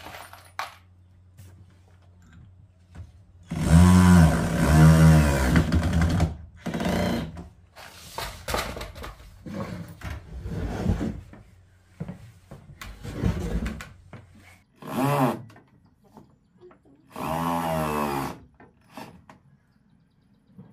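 An electric power tool run in a series of short bursts, its motor pitch rising as it spins up and falling as it winds down. The longest and loudest burst comes about four seconds in.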